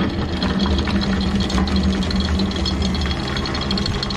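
Electric anchor windlass running steadily with a constant motor hum, paying the anchor chain out over the bow roller.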